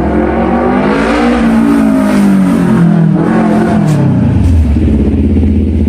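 CFMOTO 400NK parallel-twin engine through a replica SC-Project CRT slip-on muffler with no silencer insert, revved up from idle, its pitch rising over the first second and a half, then sinking back to a steady idle about four and a half seconds in.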